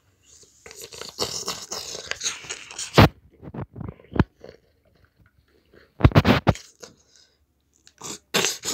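Rustling and scraping of hands handling a small Lego robot figure and the camera, with a few sharp knocks: one about three seconds in, one about four seconds in, and a loud cluster around six seconds in.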